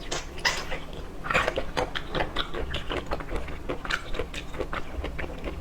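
Close-miked eating of seafood: wet chewing, biting and lip-smacking, many short irregular clicks and smacks.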